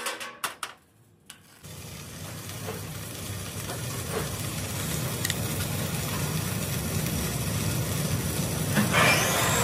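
A few sharp strikes of a chipping hammer on the weld seam of a steel tank, then, after a short pause, steady crackling and hissing of stick (arc) welding on the steel tank, with a short louder burst of noise near the end.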